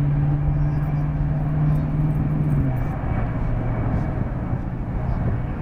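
C-17 Globemaster III jet transport's four turbofan engines at high power as it climbs away: a loud steady drone with a hum over a rushing noise. The hum drops to a lower pitch about three seconds in.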